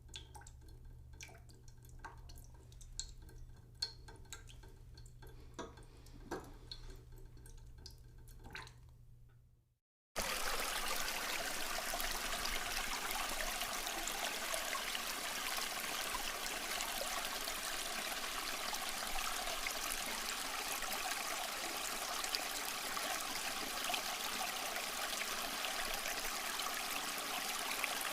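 Faint scattered drips and small clicks over a low hum. About ten seconds in, this cuts out and gives way to a steady, loud rush of running water.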